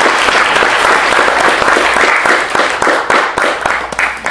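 Audience applauding, dense clapping that thins out in the last second and stops near the end.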